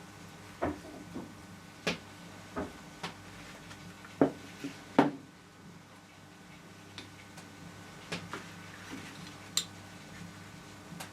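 Hard objects being handled and set down on a work surface: about a dozen scattered clicks and knocks, the two loudest about four and five seconds in, over a faint steady hum.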